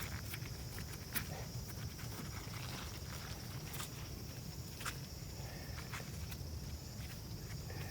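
Potatoes being dug out of garden soil and handled: scattered rustling with a few sharp knocks, over a steady high-pitched outdoor drone and a low rumble.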